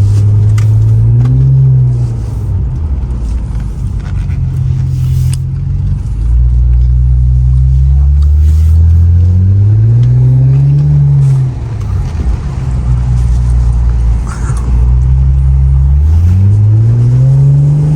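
Infiniti Q50's turbocharged engine heard from inside the cabin, accelerating through the gears on a freshly replaced turbo. The engine note climbs in pitch three times, each climb ending in a gear change, with steady running between.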